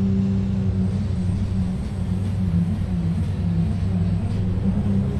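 Diesel pulling truck's engine running hard under full load as it drags a weight-transfer pulling sled, pouring black smoke. The engine note holds fairly steady and wavers a little in pitch partway through.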